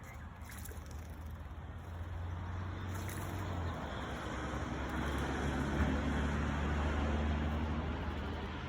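Low, steady engine hum of a passing motor vehicle, growing louder to about six or seven seconds in, then fading.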